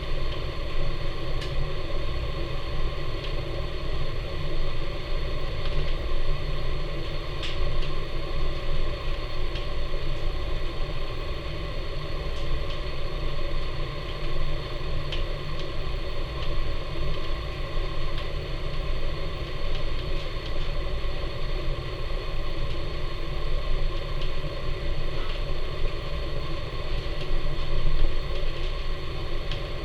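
Wood fire burning hard in the firebox of a Napoleon model 150 wood furnace, a steady low rumble of the draft with a few sharp crackles and pops from the burning wood. The ash pan door is open, giving the fire maximum draft.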